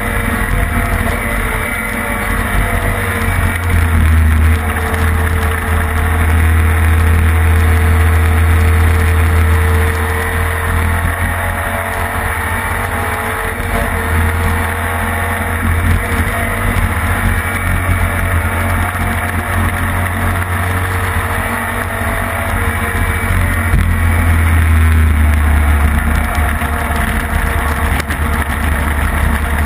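Classic racing sidecar outfit's engine running hard at speed, heard from a camera mounted on the machine with heavy rush of wind and noise. The engine note wavers up and down and dips briefly twice.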